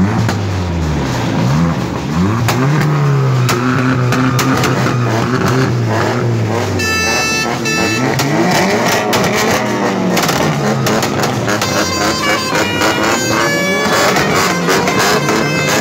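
A vehicle engine revving up and down several times, then held high for a few seconds before dropping away about halfway through. Music with steady held notes plays under it and carries on alone afterwards.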